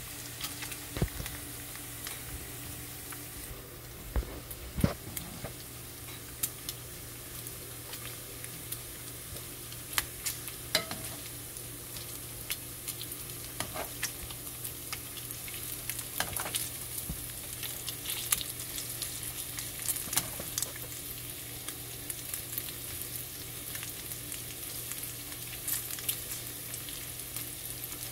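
Smoked bacon strips frying in their own fat in a nonstick pan over medium heat: a steady sizzling hiss with frequent sharp crackles and pops. A few louder knocks come as metal tongs turn the strips.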